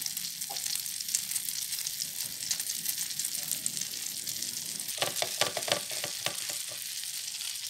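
Batter-coated bread slices sizzling in butter on a flat pan, a steady hiss. Around five to six seconds in, a brief run of soft clicks and scrapes.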